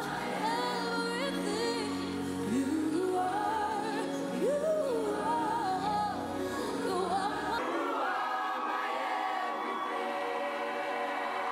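A live pop song: a woman sings lead into a microphone with a children's school choir and backing music. About two-thirds of the way through, the low accompaniment drops out and the singing goes on more thinly.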